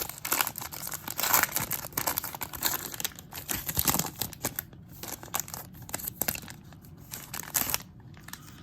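A sealed trading-card pack's plastic wrapper being torn open and crinkled by hand: dense crackling for the first few seconds, then softer rustling with one more loud crinkle near the end.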